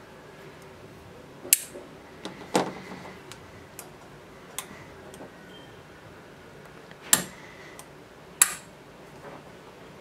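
DMM Phantom aluminium wire-gate carabiner being handled, its wire gate clicking as it is pushed open and snaps shut: four sharp clicks with softer ticks between.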